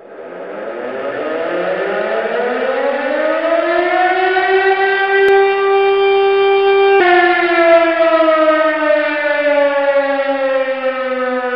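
Motor-driven fire siren winding up from low to a steady high wail, holding for a few seconds, then slowly winding down after its power is cut about seven seconds in.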